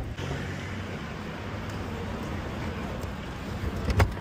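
Steady road noise of a taxi driving in city traffic, with a sharp knock about four seconds in.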